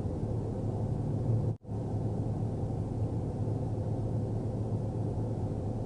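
Steady low rumble of idling vehicles and highway traffic, with a constant hum. All sound drops out for a split second about a second and a half in, then resumes.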